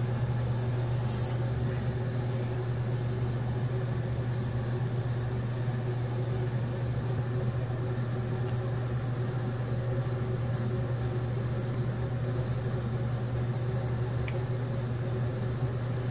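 A steady low machine hum with an even level. There is a faint tick near the end.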